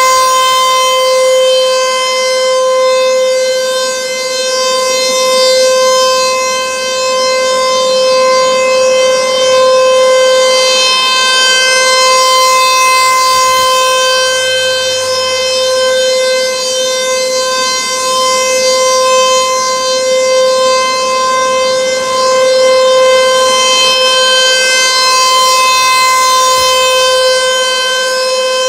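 An ASC T-128 outdoor warning siren sounding on test, holding one steady pitch. It is loud, and swells and fades slowly every several seconds as the rotating siren head turns.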